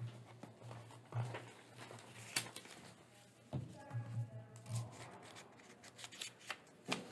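Papers rustling and being handled on a table, with scattered small clicks and taps.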